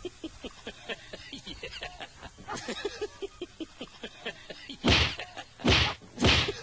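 A dog and a ginger cat scuffling in a play fight: soft small sounds at first, then three loud, short rushes of noise close together in the last two seconds.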